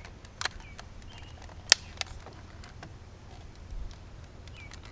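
A few sharp plastic clicks and taps as the replacement power door lock switch is handled and worked into its opening in the door panel; the loudest click comes about a second and a half in.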